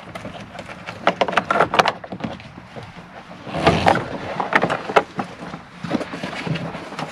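Irregular clicks and knocks of hard plastic and metal parts being handled on a pickup truck door, with a duller, heavier thump about three and a half seconds in.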